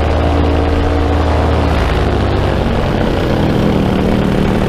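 Paramotor engine and propeller running steadily in flight, loud, over a rushing noise; the engine note shifts about two seconds in.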